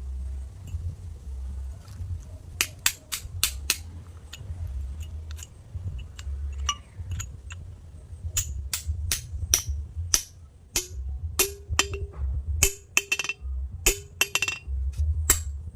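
Hammer and chisel chipping stone: sharp, irregular metallic taps, some ringing briefly, starting a couple of seconds in and coming faster from about halfway, over a low rumble.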